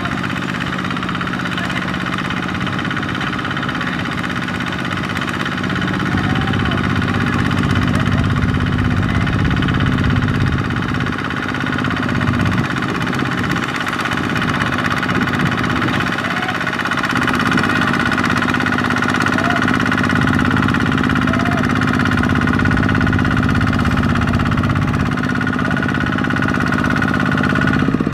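Kubota RT155 walking tractor's single-cylinder diesel engine running steadily under load with a knocking diesel beat as its lugged wheels churn through deep mud.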